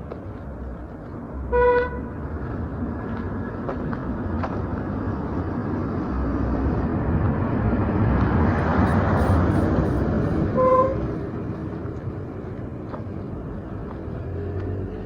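Street traffic: a vehicle horn gives a short toot about two seconds in and another about eleven seconds in, while the engine and tyre noise of a passing vehicle swells and fades in the middle.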